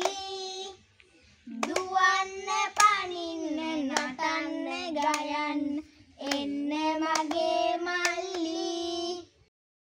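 Children singing a Sinhala hand-clapping game chant, with sharp hand claps in time with the song, in three sung stretches broken by short pauses.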